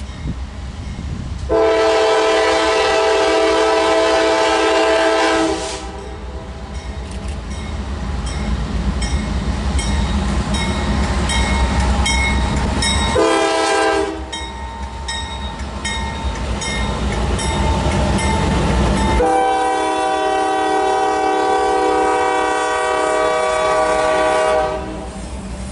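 Freight locomotive air horn sounding a chord in three blasts: long, short, then long. Under and between the blasts a locomotive rumbles past and the wheels click over rail joints.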